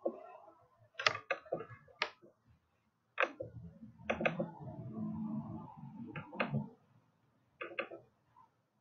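Computer mouse clicks and handling noise on a desk: about ten sharp clicks, several in quick pairs, with a low rumble under them from about three to seven seconds in.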